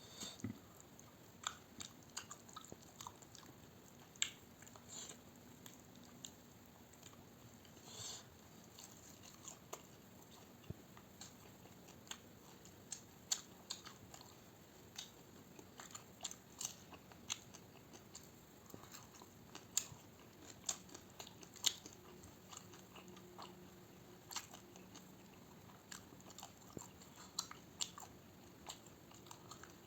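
A person eating: quiet chewing and biting, with many short, irregular crunches and mouth clicks.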